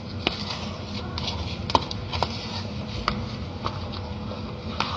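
Soap-based slime being stirred in a cup: scattered light clicks and taps over a steady low rustling noise.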